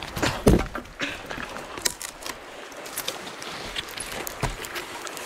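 A tree climber working down a trunk on a rope, with scattered clicks of climbing hardware and scrapes of boots and rope against the bark. One louder thump comes about half a second in.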